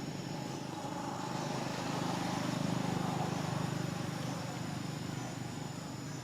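A motor vehicle's engine passing by: a steady low hum that grows louder toward the middle and then fades away.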